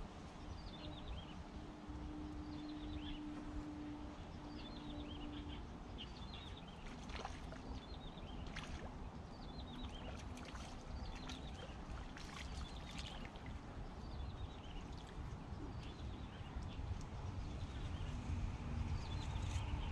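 A bird repeating a short falling run of high chirps every second or two, over a steady low rumble. A low steady hum runs through the first five seconds or so, and a scatter of short clicks falls in the middle.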